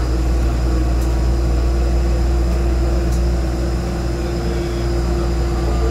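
Steady low engine rumble with a constant mid-pitched hum, from a vehicle moving across the airport apron, easing slightly about four seconds in.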